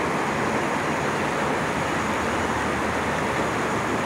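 Steady rush of fast, turbulent river water.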